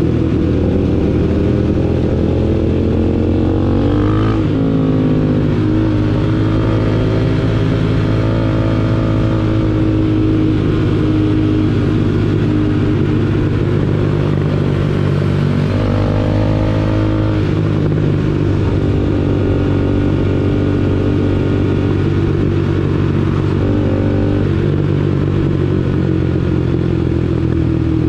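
Motorcycle engine running under way, a steady drone whose revs shift and climb briefly about four seconds in, again a little past halfway, and near the end.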